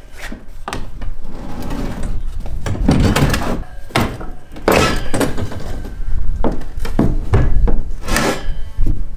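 Hollow plastic basketball-hoop base knocking and thudding as the pole's wheel bracket is worked into it and the base is pressed and stood on: a string of irregular knocks and thumps, some ringing briefly.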